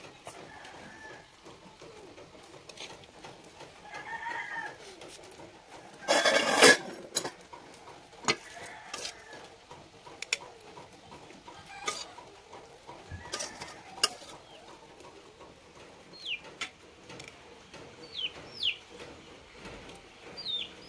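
Chickens clucking, with a loud burst lasting about a second roughly six seconds in. Scattered light clicks follow, and short falling chirps of small birds come near the end.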